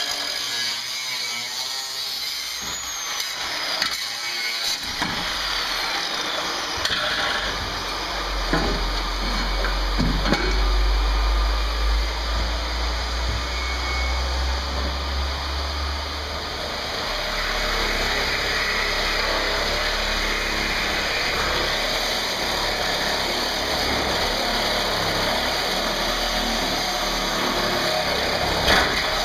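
Power tools cutting steel on a van body: an angle grinder cuts through a steel frame rail, and later a reciprocating saw cuts through the sheet-metal roof pillar and rail. A low rumble runs for a stretch in the middle.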